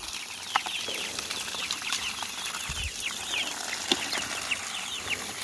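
A flock of young chickens peeping: many short, falling chirps over one another, with a few scattered clicks.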